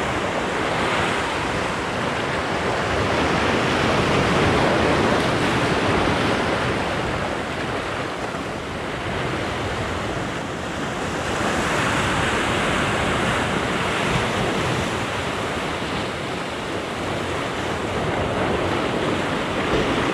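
Sea surf breaking and washing over a rocky shore, a steady rush that swells loudest about four and twelve seconds in.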